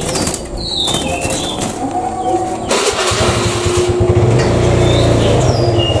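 An engine starts with a sudden burst about three seconds in, then runs with a low fast-pulsing note, loudest near the end. Caged songbirds give short high chirps throughout.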